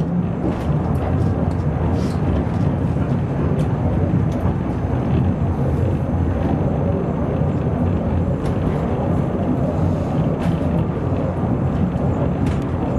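Dresden funicular car running along its track, heard from inside the car: a steady low rumble with a few sharp clicks scattered through it.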